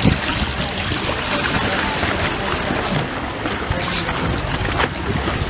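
Wind buffeting the microphone over water, with the sound of water against a sailing boat's hull.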